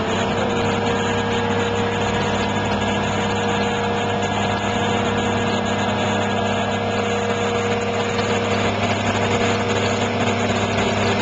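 Mobile crane's diesel engine running steadily under load, with a steady whining tone over the engine note.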